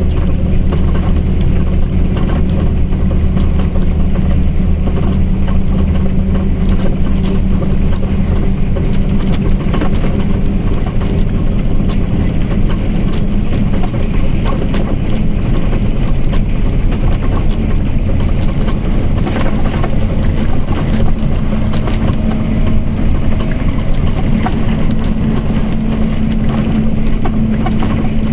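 Mercedes-Benz OF-1722M bus under way: a steady drone from the engine and differential. A humming tone creeps slightly higher in pitch over the last several seconds, over constant fine rattling of the body.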